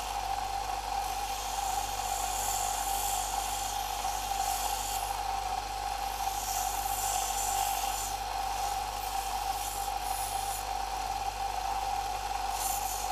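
Bench belt sander running with a steady whine and hum, while a thin wooden lollipop stick is ground against the belt in repeated passes, each giving a rasping hiss that comes and goes.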